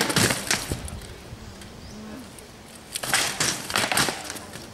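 Rattan swords striking shields and armour in armoured combat: a quick flurry of several sharp blows at the start, a pause, then another flurry about three seconds in.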